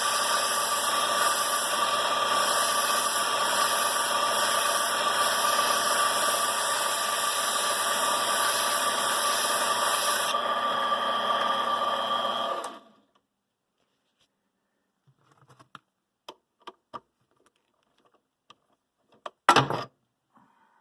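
Steady machine running noise with a steady whine, cutting off quickly about 13 seconds in. A few light clicks follow, then a single sharper knock near the end.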